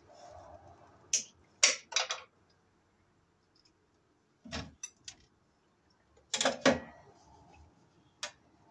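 Sharp clicks and snaps from wire strippers working the end of a 12-gauge black copper wire at an open breaker panel, stripping its insulation. They come in a few short clusters, the loudest about two-thirds through.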